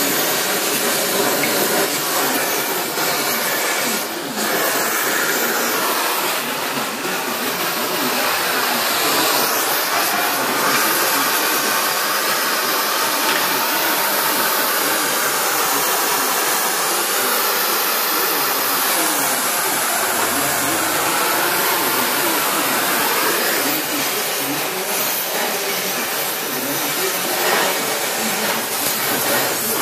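Oxy-fuel cutting torch hissing steadily as its flame cuts through metal.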